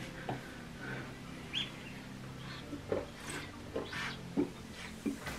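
Drinking from a large water bottle: soft gulps and breaths, with a couple of short high chirps early on the bottle being handled.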